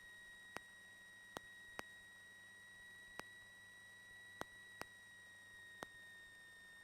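Near silence: the audio feed has dropped out, leaving only a faint steady high electrical tone and about seven sharp, irregularly spaced clicks.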